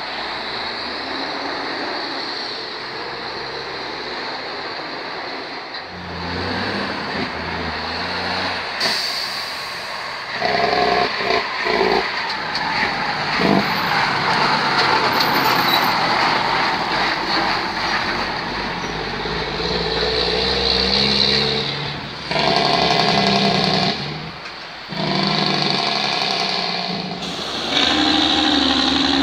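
Heavy diesel tractor-trailers passing one after another, engines running under load with tyre and road noise. There are several loud spells as each truck goes by.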